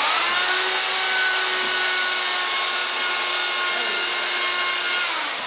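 Corded handheld electric power tool switched on and spinning up, then running steadily on a plywood panel with a high whine over a loud hiss. It winds down near the end.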